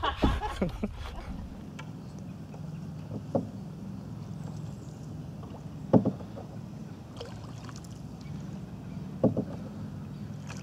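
Canoe being paddled on calm water, with a sharp knock of a paddle against the canoe's side about every three seconds over a low steady hum.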